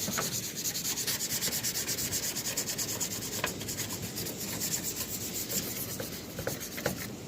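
Toothbrush scrubbing an air conditioner unit: quick, rhythmic back-and-forth bristle strokes, several a second, easing off slightly in the second half.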